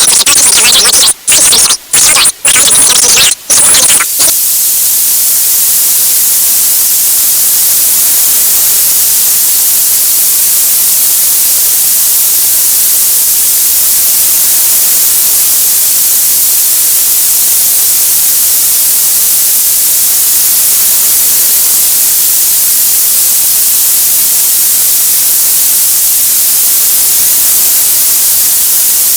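Loud, harsh distorted signal noise that cuts out briefly four times, then about four seconds in it gives way to a steady hiss of TV static.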